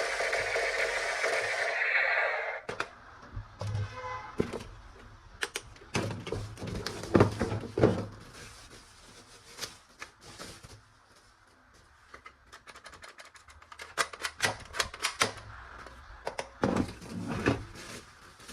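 Hard plastic toy gun parts being handled: a steady rushing noise cuts off in the first seconds, then a string of clicks, snaps and knocks follows, some in quick runs.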